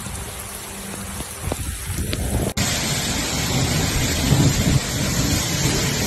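Heavy rain and gusting wind of a violent squall, with wind rumbling on the microphone. About two and a half seconds in, an abrupt cut switches to a louder stretch of driving rain and wind.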